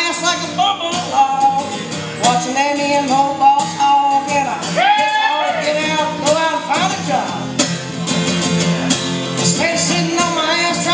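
A man singing a song while strumming a cutaway acoustic guitar, his voice holding and bending notes over steady strums.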